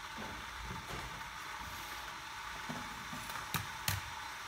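Steady background hiss with faint rustling, then two sharp knocks close together as a digital kitchen scale is set down on the table.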